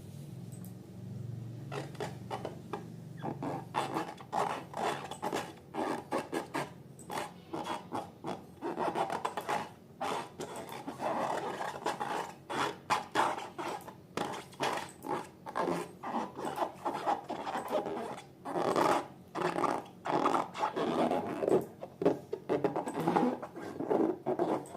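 Slime being worked and mixed by hand, a run of irregular crackles, squelches and rubbing noises that builds over the first couple of seconds and then goes on unevenly.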